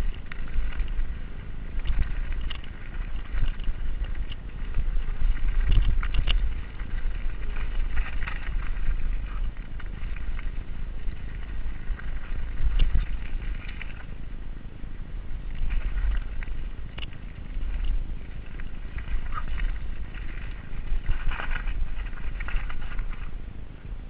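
Giant Reign full-suspension mountain bike descending a rocky dirt single-track at speed: wind rumbling on the GoPro's microphone, tyres rolling over dirt and stones, and the bike clattering and clicking over the bumps, growing louder in rough patches.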